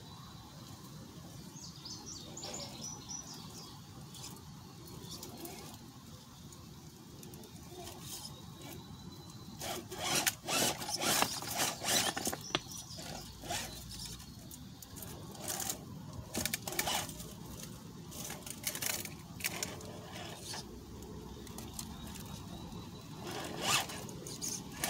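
Radio-controlled Redcat Gen7 rock crawler clambering over boulders: its tires and chassis scrape, click and knock against the rock in irregular bursts, busiest about ten seconds in and again near the end.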